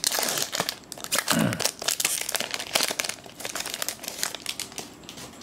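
Foil wrapper of a Magic: The Gathering booster pack crinkling as it is handled and torn open, with a dense run of crackles that thins out near the end.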